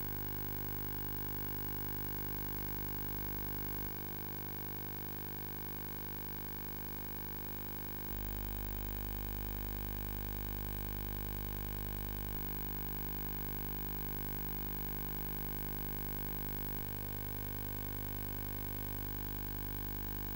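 Steady electrical hum over a faint hiss, with no other sound. The hum's low end shifts slightly in level every few seconds.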